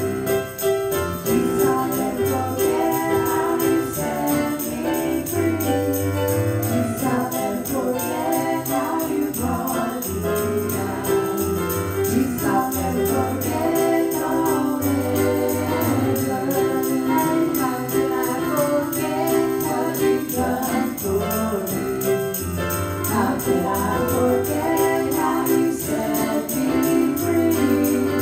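Two women singing a gospel worship song in harmony into microphones, over keyboard accompaniment with a pulsing bass and a jingling tambourine-like beat.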